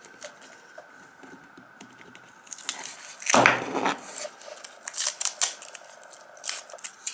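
Short rustling, scraping and tearing noises as a freshly soldered Pro Micro board and its pins are pulled free of the breadboard and tape. The loudest is about three and a half seconds in, with a few smaller ones after it.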